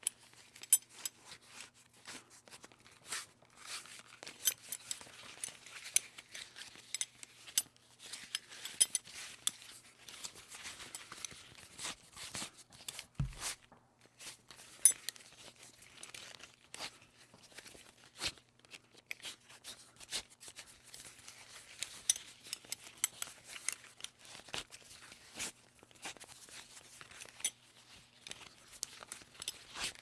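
A buckle being worked over and over: irregular sharp clicks and clinks with rustling between them. A single low thump about thirteen seconds in.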